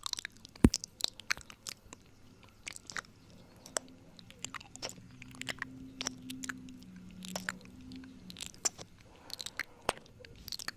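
Close-miked wet mouth sounds of ASMR 'ear eating': irregular clicks and smacks of lips and tongue. A faint low hum sits under them in the middle.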